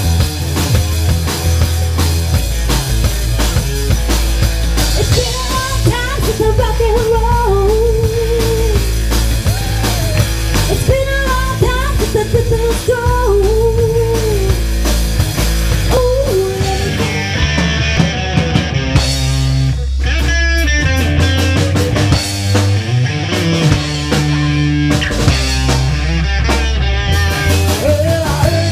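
Rock music with drums, bass and a melody line, with a brief break about two-thirds of the way through.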